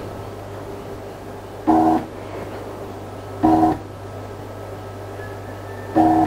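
Stepper motors of a 6012 CNC router whining through three short jog moves, each about a third of a second, with the machine's steady low hum underneath. The moves bring the spindle into position over the workpiece before X and Y are zeroed.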